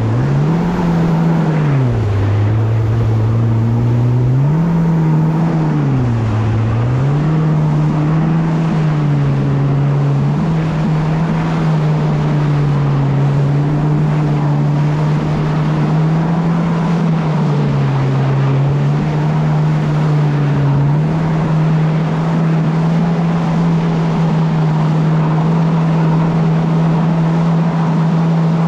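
A motor vehicle's engine running under way with a steady rushing noise. Its pitch drops and climbs back several times in the first few seconds, dips briefly a few more times, then holds steady.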